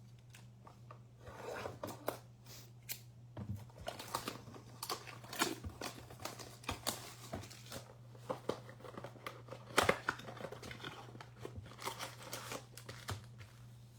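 Crinkling, tearing and scattered clicks of a trading card blaster box and its foil card packs being opened by hand, over a steady low hum.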